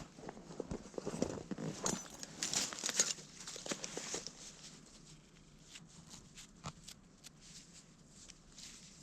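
Crackling, scraping handling noises of hands working soil and a freshly dug button, dense for the first four seconds or so, then thinning to scattered clicks.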